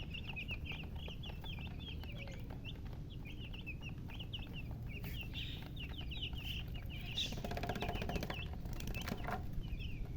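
Baby chicks peeping: many short, high, falling peeps in a dense stream, with a stretch of rustling about two-thirds of the way through.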